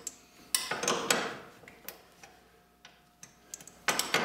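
A wrench tightening the top nut of a snowmobile's pogo-stick ski suspension, making a series of sharp metallic clicks about half a second apart. The clicks come quicker and louder near the end.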